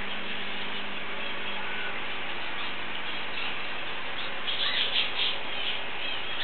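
Steady rush of water with a low electric hum from a river-style aquarium's high-flow circulation pumps, rated at about 39,000 litres an hour. A few short high chirps sound over it, bunched about four and a half to five and a half seconds in.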